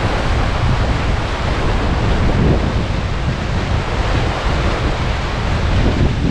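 Loud, steady rush of sea surf breaking over a rocky shoreline, mixed with wind buffeting the microphone.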